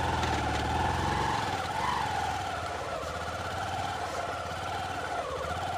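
A vehicle's engine running under load as it is driven through a shallow flooded river crossing, its pitch wavering up and down, over the wash of water around it.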